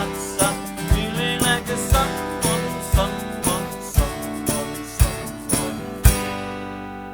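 Acoustic guitar strumming over a percussion beat about once a second, the outro of a live acoustic duo's song. It ends on a final chord about six seconds in that rings out and fades.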